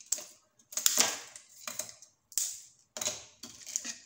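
A sheet of caramelised almond brittle, set hard and cooled, being snapped apart by hand. It gives a series of crisp cracks and crackles, about six in four seconds.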